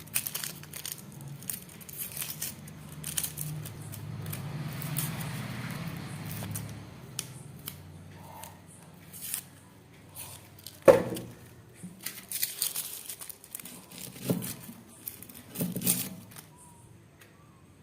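Onions being peeled by hand, their dry papery skins tearing and crinkling, with a few knocks, the sharpest about eleven seconds in.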